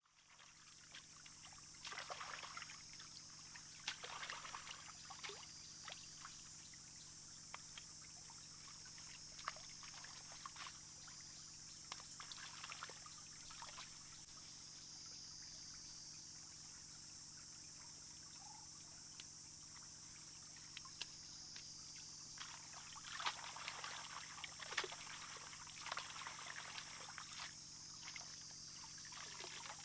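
Shallow stream trickling over rocks, with irregular splashing and sloshing as lettuce leaves are swished and rinsed in the water by hand; the splashes come in bunches, busiest near the end. A steady high hiss sits under it all.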